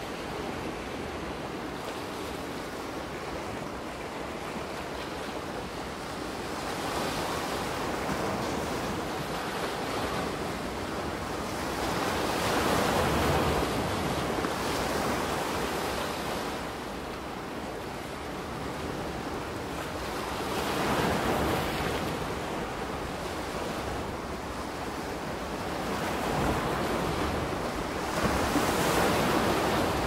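Soft ocean waves washing onto a beach: a steady surf hiss that swells every five to eight seconds as each wave breaks and runs up, the strongest about halfway through.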